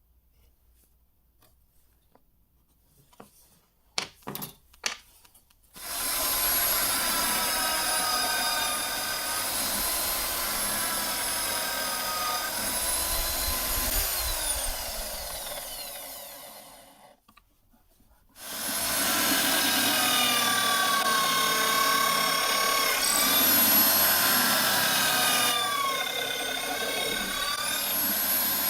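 A few knocks, then a power tool's motor runs with a wavering whine for about eleven seconds, stops briefly, and runs again.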